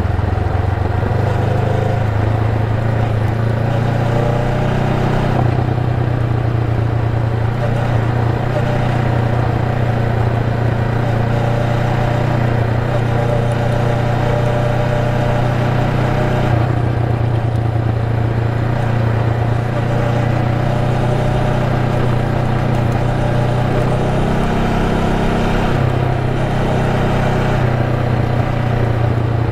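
Honda Rebel 500's parallel-twin engine running steadily while riding, with a low, even exhaust note. Its pitch steps a few times and rises briefly about three-quarters of the way through.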